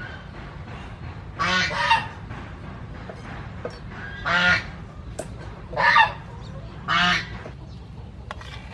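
Fowl calling: four loud calls, each about half a second long, coming a second or two apart.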